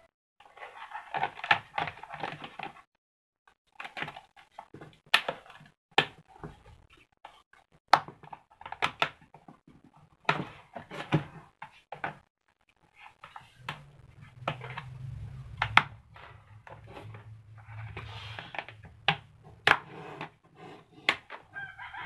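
Plastic clicks, knocks and rattles of a table fan's motor housing and plastic stand being handled and fitted together, many sharp knocks scattered through.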